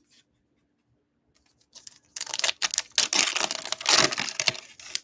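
Foil wrapper of a Topps Holiday baseball card pack being torn open and crinkled. It starts about two seconds in, is loudest near four seconds, and dies down near the end.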